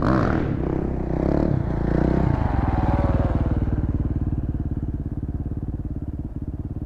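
Motorcycle engine running close to the microphone: rising and falling engine notes in the first couple of seconds, then it settles into a steady, evenly pulsing run about two and a half seconds in.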